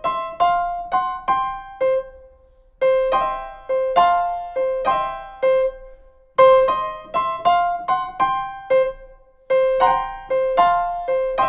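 Piano playing a right-hand blues/boogie-woogie riff in C without a bass line: a repeated low C alternating with double-stopped chords above it, switching between two riffs bar by bar, in short phrases with brief pauses between them.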